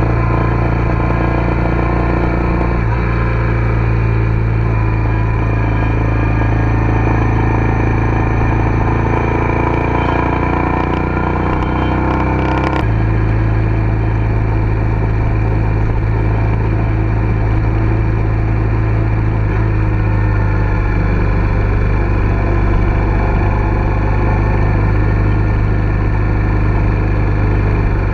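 Car engine and road noise heard from inside the cabin while driving, a steady drone. The sound jumps abruptly to a slightly different drone about 13 seconds in.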